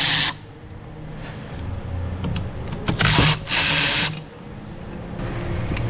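Cordless power tool running in short bursts, one right at the start and two more around three to four seconds in, as the bolts of the water pump's thermostat housing are spun out.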